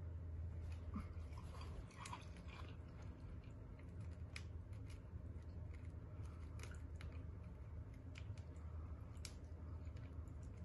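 Plastic cocktail pouch crinkling with scattered faint clicks as it is handled and squeezed out into a glass of ice, over a low steady hum.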